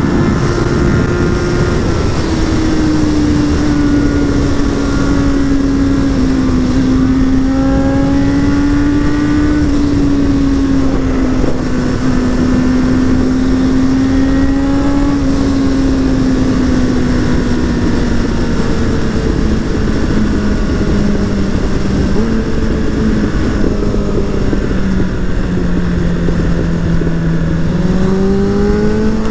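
Suzuki Bandit 600's inline-four engine and exhaust running at high revs while riding, over steady wind rush. The engine note slowly drops in pitch, then rises sharply near the end as the bike accelerates.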